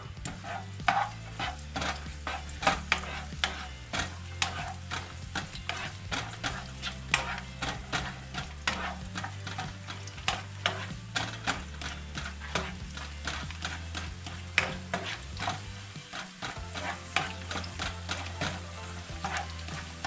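Sliced garlic sizzling in hot oil in a nonstick wok, stirred with a slotted spoon that scrapes and taps against the pan in many irregular strokes.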